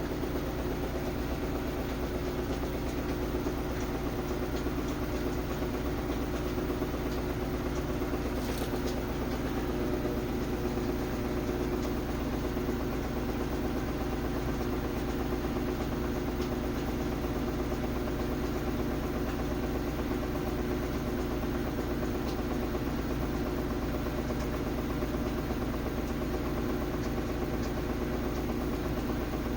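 Samsung WF330ANW front-load washer on its spin cycle, giving a steady loud grinding hum with strong vibration. The owner suspects something loose inside, a shock absorber come off, or a failing drum spider bracket or bearing.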